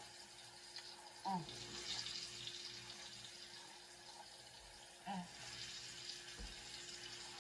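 A woman eating a sandwich, making two brief hummed 'mm' sounds while chewing, about a second in and again about five seconds in, over a faint steady hiss and hum of room noise.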